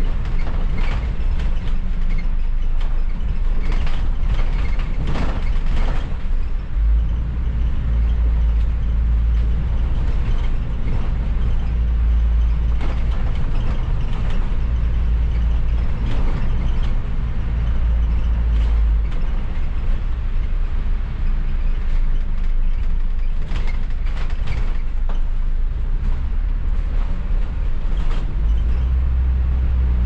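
Cabin noise from the upper deck of a London double-decker bus in motion: a steady low engine and road rumble that grows heavier for a long stretch in the middle and again near the end, with scattered short knocks and rattles.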